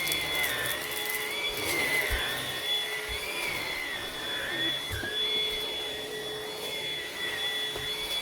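Vax Pace Pet vacuum cleaner running while vacuuming up mess. Its motor whine wavers a little in pitch over a steady high tone, with a few brief knocks.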